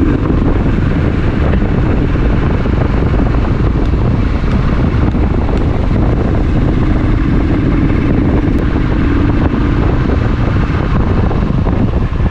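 Motorcycle engine running on the move, with heavy wind rumble on the microphone. A faint steady tone comes up about six seconds in and fades a few seconds later.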